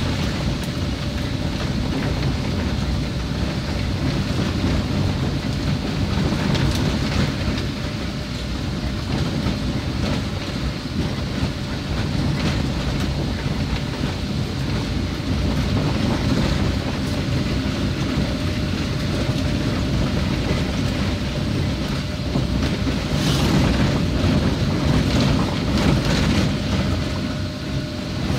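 Road noise inside a car driving over a rough, wet, unsealed road: a steady low rumble of engine and tyres, with a few knocks from bumps near the end.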